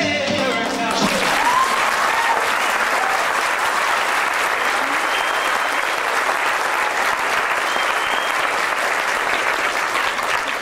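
Audience applauding and cheering as the music ends about a second in, with a few shouts or whistles over the clapping.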